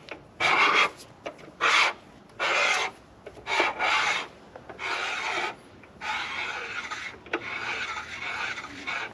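Hand-turned counterbore cutter scraping metal out of the cast-iron cylinder counterbore of a CAT 3406E block: a series of rasping scrapes, one per turn of the T-handle, short and separate at first and then longer and nearly continuous. It is taking the counterbore two thousandths of an inch deeper for the cylinder liner.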